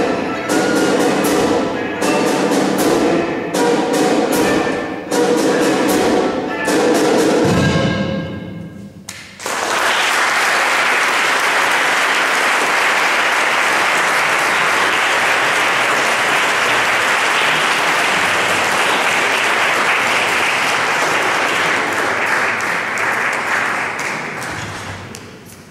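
A small live orchestra plays, with sharp percussive hits over sustained pitched notes, and the piece ends about nine seconds in. Audience applause then breaks out and holds steady, dying away near the end.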